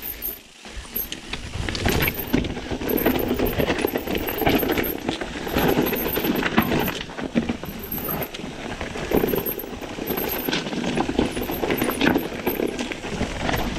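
Mountain bike ridden over a rough trail: a steady rolling rumble from the tyres with frequent knocks and rattles from the bike over bumps.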